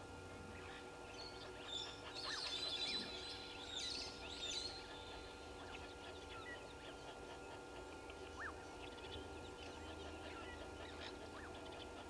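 Wild birds calling: a burst of high, chattering calls about two seconds in, lasting a couple of seconds, then scattered fainter chirps and a few short whistled notes. A steady faint hum runs underneath.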